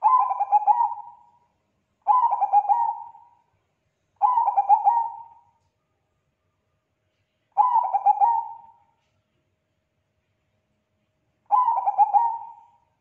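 Perkutut bangkok (zebra dove) cooing: five phrases, each a quick run of coos that starts strong and trails off over about a second. The first three come about two seconds apart, then two more follow after longer gaps.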